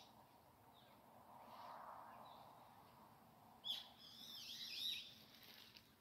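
Small wild bird calling: a short burst of quick swooping notes starting with a sharp note about three and a half seconds in, against near-silent woodland.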